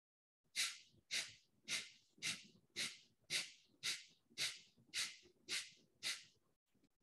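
A person doing Kapalbhati breathing: eleven sharp, forceful exhalations through the nose, about two a second, then stopping. This is one counted set of the breathing exercise.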